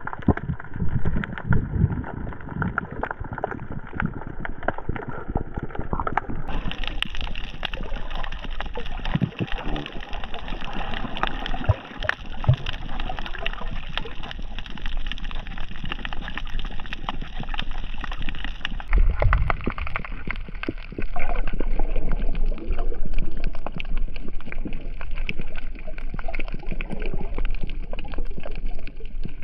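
Water sloshing and gurgling close to the microphone, with a low rumble and small splashes throughout; the sound changes character abruptly twice.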